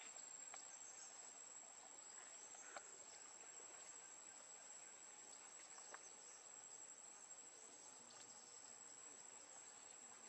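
Near silence with a faint, steady high-pitched insect drone and a few faint ticks.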